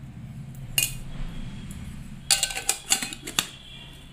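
Steel spoon clinking against a stainless-steel plate as sugar is spooned onto khichdi: one tap about a second in, then a quick run of sharp metallic clinks a little past the middle.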